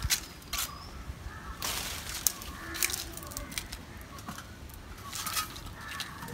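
Mango tree leaves rustling, with a few short sharp clicks and knocks as a raw green mango is pulled from the branch by hand and handled; the longest rustle comes about two seconds in.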